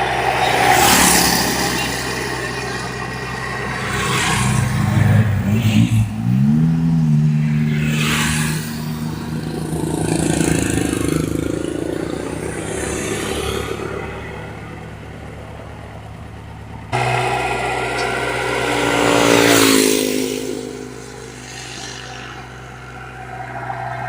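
Komatsu PC75 excavator's diesel engine running, revving up about five seconds in and holding at a higher pitch, with scattered clanks of metal. The sound changes abruptly about seventeen seconds in.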